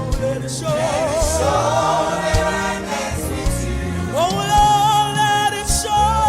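Live gospel worship music with singing: a wavering vocal run about a second in, then a long held note from about four seconds in, over a steady low accompaniment.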